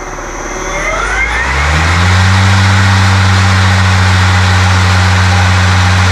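EGO LM2130SP electric lawn mower's blade motor spinning the blade with no grass load, as a first test run. Its low hum dips near the start, then spins back up about a second and a half in with a rising whine, and holds steady. It sounds kind of like a spaceship.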